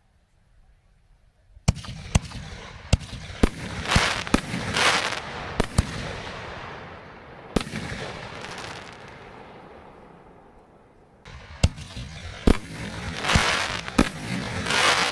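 Raccoon Fireworks Ghostscular 60 g reloadable aerial shells firing. After a second and a half of quiet comes a string of sharp bangs, each shell launching and bursting. Two stretches of dense crackling follow, one about four seconds in and one near the end.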